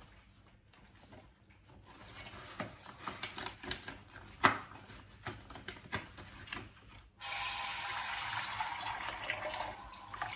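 Long rubber dishwashing gloves being pulled on, with a run of rubbery clicks and snaps, one sharp snap about halfway through. Then a kitchen tap is turned on and water runs steadily into the sink.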